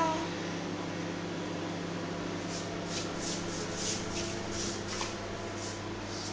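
Soft, irregular rustling and scuffling of a duster being tugged, a few rustles each second from about halfway, over a steady low hum.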